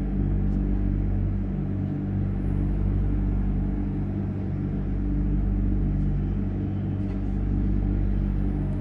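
Steady low rumble of distant city traffic, with a constant hum of several steady low tones running under it.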